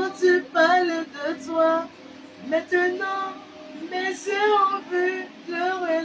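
A woman singing a slow song, holding wavering notes.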